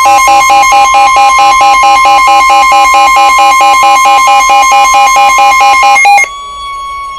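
Emergency Alert System attention signal: a loud, steady alert tone with a rapidly pulsing alarm tone over it, about five pulses a second, warning of a special marine warning. About six seconds in the pulsing stops and a softer steady tone carries on.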